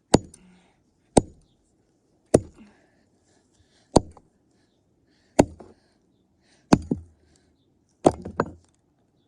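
A cheap toy car being smashed: seven hard, sharp blows at intervals of a second or more, the last with two quick follow-up knocks near the end.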